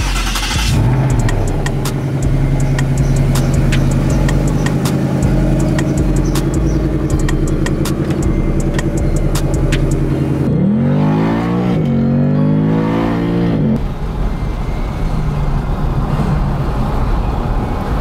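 Ford Mustang engine starting up about a second in, flaring briefly and settling to a steady idle. Later it revs up twice in quick succession, each time climbing in pitch and dropping back, then settles to a steadier, lower running sound.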